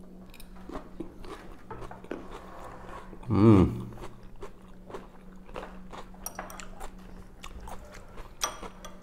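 Chewing and crunching of salad, with many small clicks of metal forks against ceramic bowls. About three and a half seconds in there is one short voiced sound. A faint steady low hum runs underneath.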